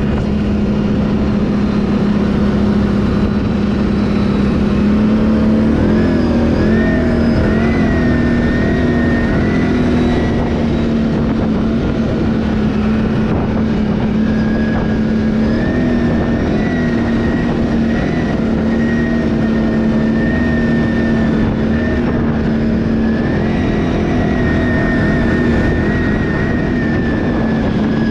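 Can-Am ATV engine running steadily while riding. Its pitch rises and wavers with the throttle about six seconds in, again around the middle, and near the end.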